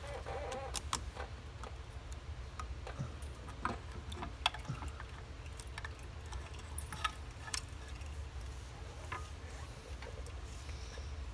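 Scattered light clicks and taps, irregularly spaced, as an ATV engine's stator cover and hand tools are handled, over a steady low hum.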